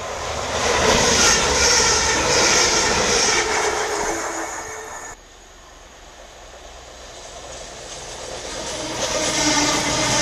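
A TransPennine Express Class 185 diesel multiple unit passes through the station, its engine and wheel noise loud, then cuts off suddenly about five seconds in. A CrossCountry Voyager diesel unit then approaches, growing steadily louder as it comes through.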